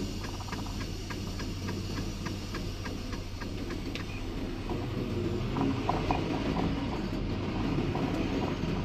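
Diesel semi truck running with a steady low hum. A regular ticking, about three to four ticks a second, runs through the first four seconds and then stops.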